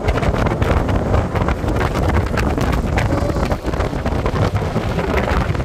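Strong wind blasting across the camera's microphone: loud, low buffeting full of crackles, starting suddenly and carrying on without a break.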